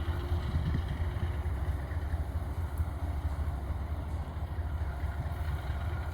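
Low, steady rumble of a passing diesel-hauled freight train.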